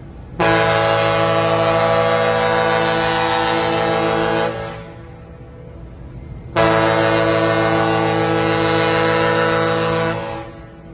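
The ferry MV Peralta's ship horn sounding two long, steady blasts of about four seconds each, about two seconds apart.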